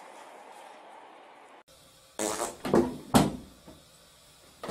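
Three short fart sounds in quick succession, the last one the loudest and dropping in pitch.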